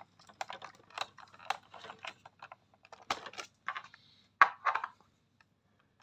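Light plastic clicks and rattles as a robot vacuum's battery pack is handled and fitted back into its plastic battery compartment, with a couple of louder clacks about four and a half seconds in.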